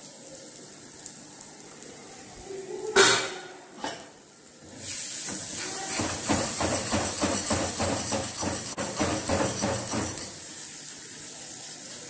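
Steel spoon scraping and stirring thick pickle paste around a metal kadai, in quick repeated strokes of about four a second from about five to ten seconds in. Under it is a low hiss of the mixture frying in oil. About three seconds in there is one sharp knock.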